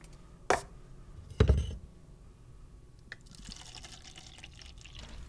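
Coffee poured from a glass carafe into a paper cup, an even splashing trickle from about three and a half seconds in. Before it, a sharp click about half a second in and a heavier thump about a second and a half in, the loudest sound here, as the cup and carafe are handled on the counter.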